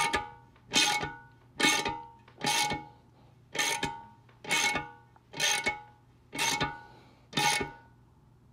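Steel nut being tightened with a wrench to pull a T-bolt stud's head into its hole in a Ford 9-inch rear axle housing: a metallic creak with a short ringing tone at each pull, about once a second, nine times, stopping near the end.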